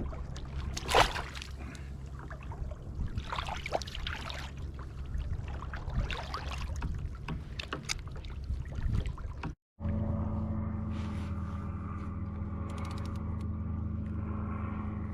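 Water sloshing and irregular knocks and handling noise on a fishing kayak, with a loud knock about a second in. After a sudden break, a boat motor runs with a steady drone.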